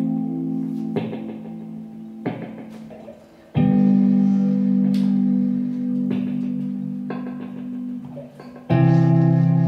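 Free-improvised ensemble music led by electric guitar: long ringing chords struck about three and a half seconds in and again near the end, each left to fade slowly, with a few light taps in between.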